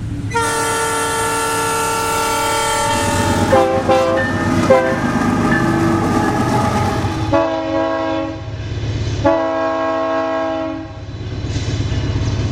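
Diesel freight locomotive air horns: one long blast, a few short toots, then two more blasts over a steady low engine rumble.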